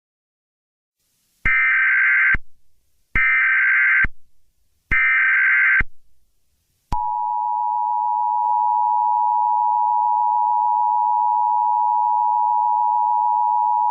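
Emergency Alert System tones opening a new alert: three short electronic data bursts of the SAME header, each just under a second long, then the steady two-tone EAS attention signal starting about seven seconds in and holding.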